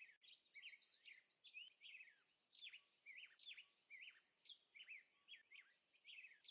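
Faint birdsong: small birds chirping in quick falling and rising notes, about three a second.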